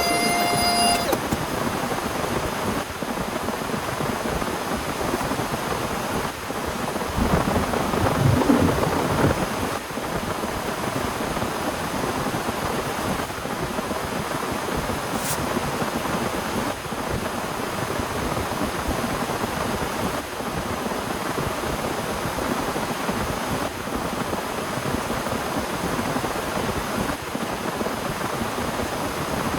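Heavy rain falling steadily, with a rumble of thunder swelling about seven seconds in and dying away by about ten seconds.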